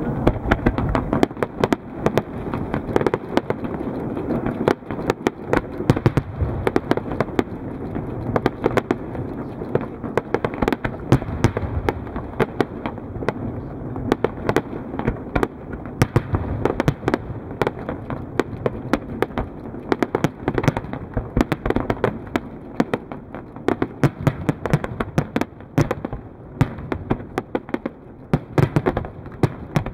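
Aerial fireworks shells bursting one after another in a large display: a dense, continuous run of sharp cracks and pops over a steady low rumble.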